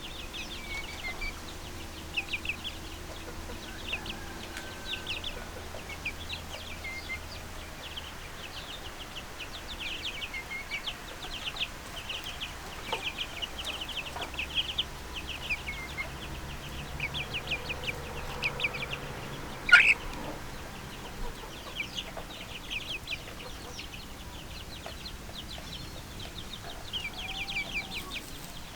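Young chicks peeping: a continuous flock chorus of rapid, short, high peeps, with one much louder single call about twenty seconds in.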